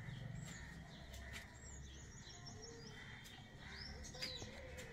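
Small birds chirping: short high calls, a quick run of repeated notes about two seconds in and a rising call near the end, with a few faint clicks.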